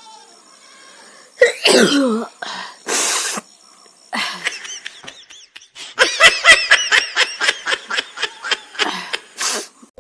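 A woman sneezing, set off by a feather tickled at her nose: a loud sneeze about one and a half seconds in and a sharp, noisy burst a second later. It is followed by a long, fast run of short voiced bursts from about six seconds.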